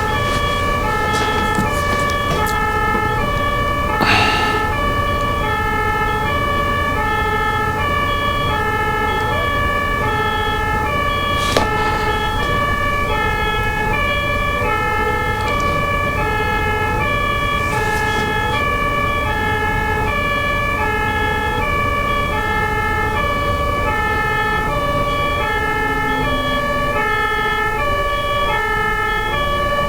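German ambulance two-tone siren (Martinshorn) alternating steadily between a high and a low note, over a steady low rumble of vehicle and road noise. Two brief knocks, about four and eleven seconds in.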